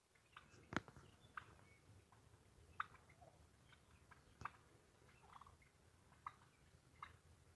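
Wild turkeys giving short, sharp single calls every second or two, faint, over a low rumble, with one sharp click about a second in.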